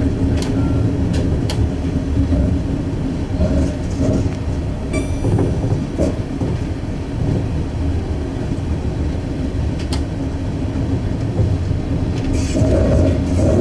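Diesel suburban railcar running along the line, heard from inside the train: a steady low rumble with a constant hum, a few sharp clicks from the wheels on the track, and a brief high squeal about five seconds in.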